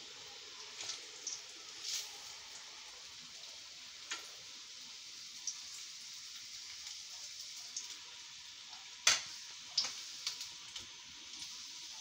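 Ghee sizzling steadily around coconut-semolina vadas shallow-frying in a pan: a continuous hiss broken by scattered sharp crackles, the loudest about nine seconds in.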